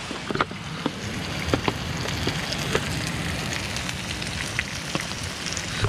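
Heavy rain falling, a steady hiss with scattered sharp ticks.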